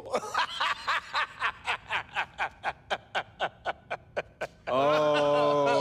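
A rapid, rhythmic snickering laugh, about five short breathy bursts a second, fading over about four seconds. It then gives way to a long drawn-out vocal sound that slowly falls in pitch.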